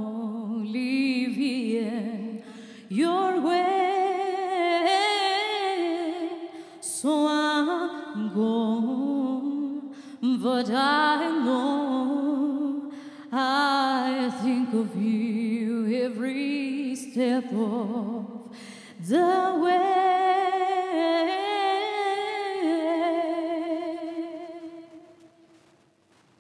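A woman sings a slow ballad solo into a microphone, holding long notes with vibrato in phrases broken by short pauses. Her voice fades away near the end.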